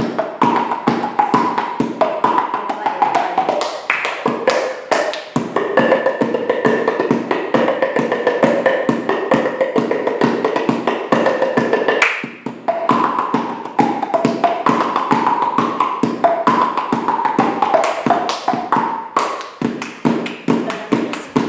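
Music with a fast, even tapping beat and a melody over it; the melody holds long steady notes from about four seconds in until about twelve seconds in.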